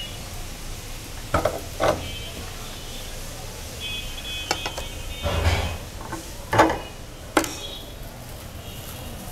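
Metal clinks and knocks of meat grinder parts being handled: the perforated grinding plate and the four-blade cutting knife taken off the grinder head and set down on a plastic plate. About half a dozen short knocks, the loudest about two-thirds through.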